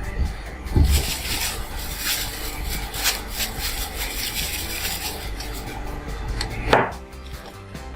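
Powdered bait ingredients being tipped into a bowl and rubbed and scraped around against it, with a dull thud about a second in and a short swish near the end.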